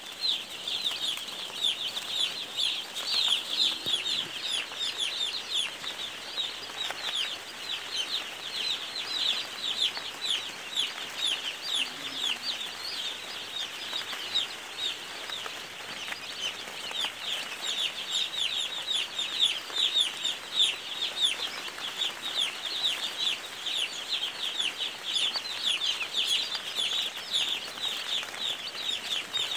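A large crowd of chicks peeping together: a dense, continuous chorus of high, short, falling peeps.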